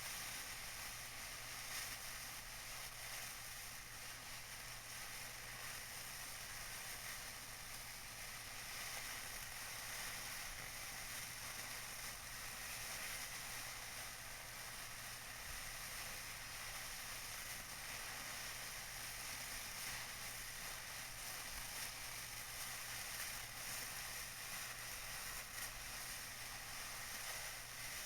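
Tissue paper being crinkled, a steady dense crackle with no pauses.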